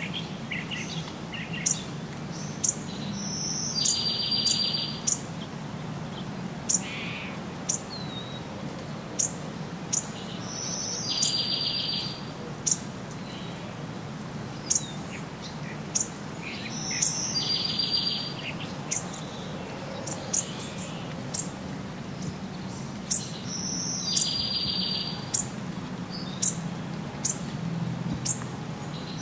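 Forest birds calling: sharp, high chip notes every second or two, and one bird repeating the same song every six or seven seconds, a short note followed by a buzzy trill about a second long.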